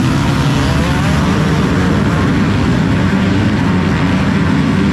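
Motocross bike engines running at race speed, a dense loud buzz with pitch rising as they accelerate in the first second.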